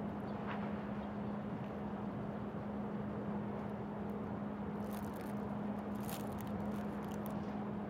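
Steady city background din with a constant low hum and distant traffic. A few short crackles and clicks come near the end.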